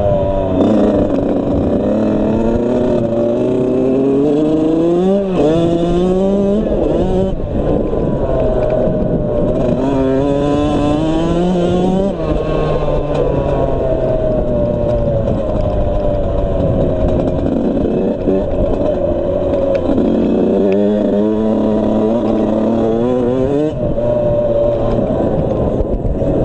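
Suzuki RM85's 85cc single-cylinder two-stroke engine being ridden hard. Its pitch repeatedly climbs and drops as the throttle is opened and closed through the gears.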